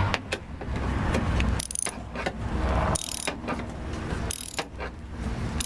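Ratchet socket wrench clicking in short bursts as it is swung back and forth, loosening a screw inside a car door.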